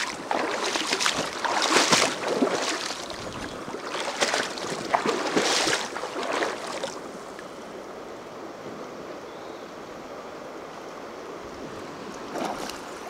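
River water splashing and sloshing in irregular bursts for about seven seconds, then only the steady rush of the flowing river, with one small splash near the end.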